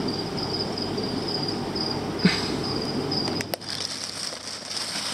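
Plastic fish bags rustling and crinkling as they are handled, louder from about three and a half seconds in, over a steady low hum and a faint, high chirping tone that pulses on and off.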